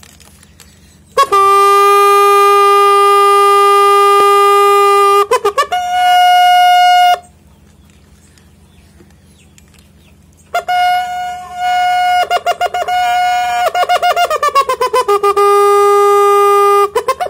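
Horn-like wind instrument blowing long, dead-steady held notes: a low note held about four seconds, a short higher note, a pause, then a higher note that stutters and steps down to the low note again.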